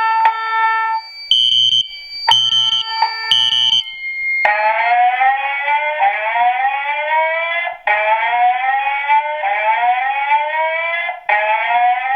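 FireCom 8500 whoop/chime evacuation signal from a Wheelock/Fire-Lite voice evacuation fire alarm speaker. A few chime strikes come first, then about four seconds in it changes to a repeating whoop, a rising tone sweeping up about once a second.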